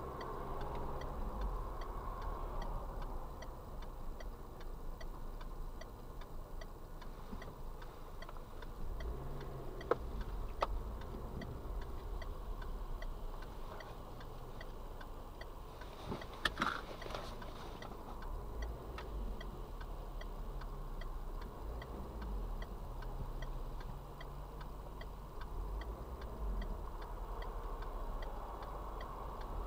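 Car's indicator flasher ticking steadily inside the cabin, with evenly spaced ticks over a low engine and road hum. A brief sharper knock comes about sixteen seconds in.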